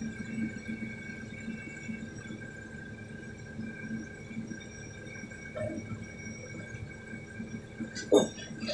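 Excavator diesel engines running at a steady, low, pulsing idle, with a high steady whine from the hydraulics. One sharp knock near the end.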